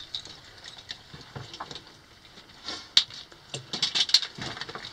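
A person climbing down rock: scattered scuffs, scrapes and clicks of boots and climbing gear, with one sharp click about three seconds in and a quick run of them near four seconds.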